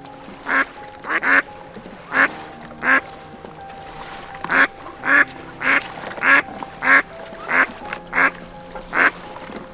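Duck quacking repeatedly, a series of short quacks about one or two a second, over steady background music.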